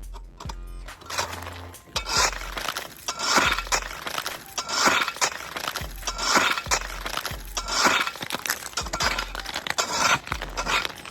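A Temper forged scraper striking and breaking up compacted ice, about seven hard strokes roughly one every second and a half, starting about two seconds in. Background music with a low bass line runs underneath.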